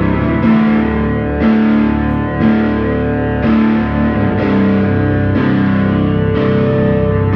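Drone music from a distorted Travis Bean TB1000S electric guitar and a Casio keyboard through effects: thick sustained chords, with a layer that pulses about once a second over a slowly shifting low note.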